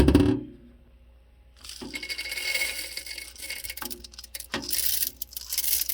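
Whole coffee beans poured into a coffee grinder's bean hopper, a dense rattling clatter of many small hard beans striking the hopper, starting about two seconds in after a single knock at the start.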